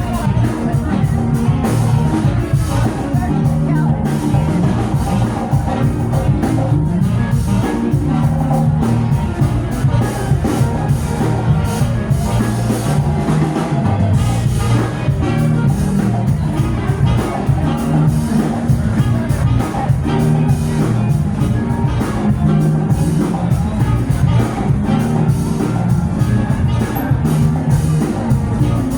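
Live rock band playing, with a drum kit keeping a steady beat.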